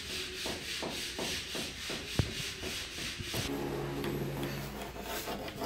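Power drill grinding in the background, a continuous harsh noise that pulses about three times a second, then settles into a steadier, lower hum about three and a half seconds in. A single sharp tap about two seconds in.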